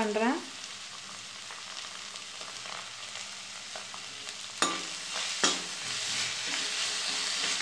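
Sliced onions and capsicum sizzling in oil in a steel kadai. A perforated steel spatula knocks twice against the pan about halfway through and scrapes round it as tomato sauce is stirred in, and the sizzle grows louder once the stirring starts.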